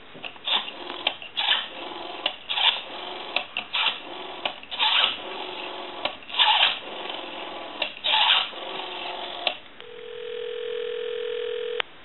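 Western Electric Princess telephone's rotary dial turned and spinning back digit after digit, its pulses clicking on the line. Near the end a steady ringback tone sounds for about two seconds as the dialled number rings.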